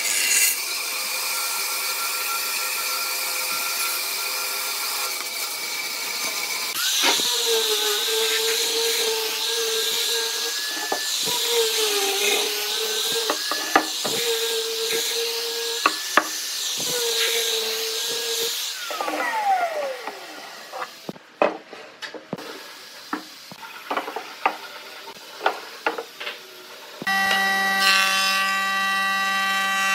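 A bandsaw cutting a thick pine block. About seven seconds in, an angle grinder with a sanding pad sands the wood, its pitch wavering with the pressure, then winds down with a falling whine, followed by scattered knocks and clicks. Near the end a planer starts running with a steady hum.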